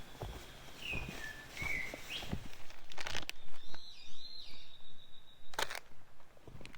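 Outdoor campsite sounds: scattered knocks and rustles of handling and footsteps, with a few faint chirps early on and a high steady whistle-like tone lasting about two seconds that cuts off suddenly.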